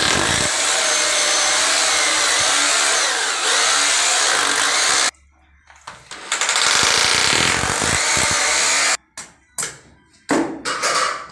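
Corded hammer drill boring into the bathroom floor to make holes for the toilet's fixing brackets: one run of about five seconds, a short pause, then a second run of about three seconds, followed by a few short knocks and rattles near the end.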